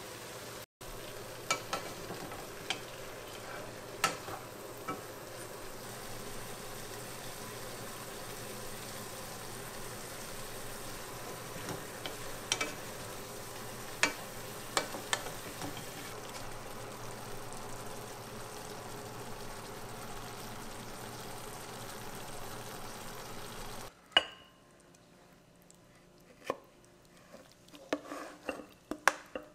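Sardines in tomato sauce with bok choy sizzling in a pot with a steady hiss, a wooden spatula stirring and knocking against the pan every so often. After about 24 seconds the sizzle stops and a few knocks and scrapes follow as the food is tipped from the pot into a ceramic bowl.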